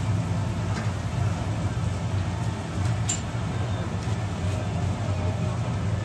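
Steady low hum with faint noise above it, and a couple of faint light clicks, about one second in and about three seconds in.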